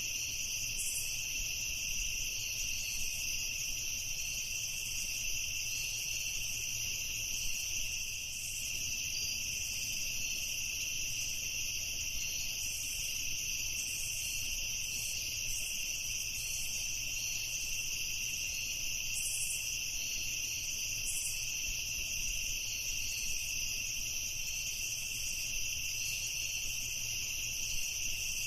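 Chorus of crickets chirping, a steady high-pitched trill.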